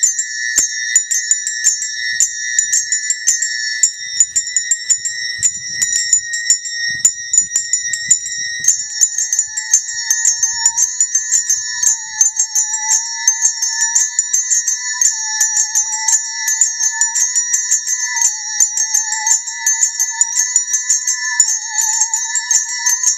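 Small handbells rung rapidly and continuously, holding a high chord of ringing tones. About nine seconds in, a musical saw enters with a wavering, vibrato-laden tone that drifts slightly up and down in pitch.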